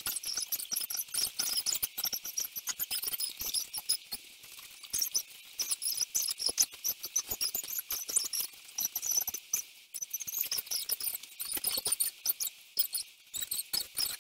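Room audio of a floor workout played back at sixteen times normal speed: a dense, fast stream of high squeaky chirps and clicks, with two brief lulls.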